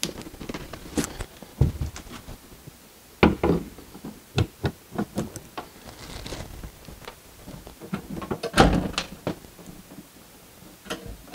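Knocks and clunks of a flat-screen TV's mounting arms being hooked onto a metal wall-mount bracket and settled into place, a series of separate impacts with the loudest about three seconds in and near nine seconds.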